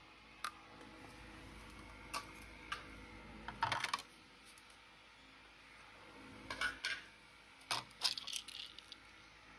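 Hard plastic parts of a disassembled toy hovercraft clicking and clattering as they are handled. A single click comes about half a second in, then short clusters of clatter around four seconds and again near seven and eight seconds.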